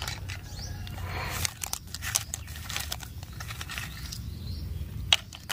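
Small plastic toy pieces clicking and knocking together as they are handled and gathered into a plastic basket, with rustling of grass and dry leaves. The clicks come irregularly, several a second at times.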